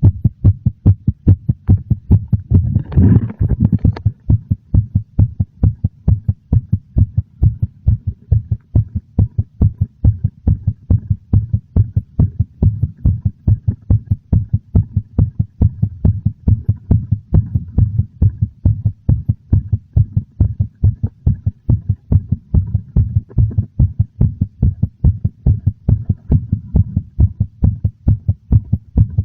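Human heartbeat, slightly fast and very noticeable: dull, low thuds in a steady, even rhythm. A brief louder noise lies over it about three seconds in.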